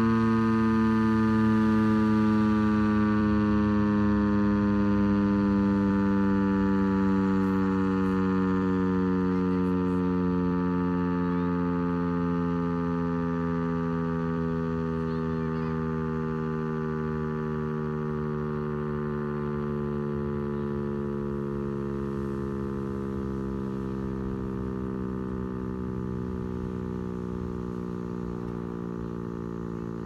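Federal Signal STH-10 outdoor warning siren winding down after its attack-signal test: one steady wail that slides slowly and evenly down in pitch and fades as the rotor loses speed.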